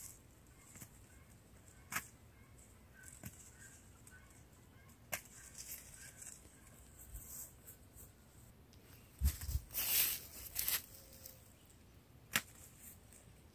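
Quiet field ambience with a few faint, sharp clicks and a short burst of rustling noise about nine to eleven seconds in.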